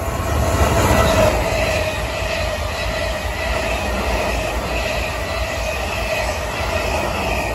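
Siemens Class 444 Desiro electric multiple unit passing at speed: a loud rush of wheels on rail with a steady whine over it, loudest about a second in.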